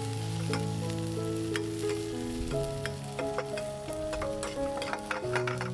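Cauliflower and peas sizzling in oil in a steel kadai while a steel ladle stirs them, with irregular clicks and scrapes of the ladle against the pan. Background music with held chords plays underneath.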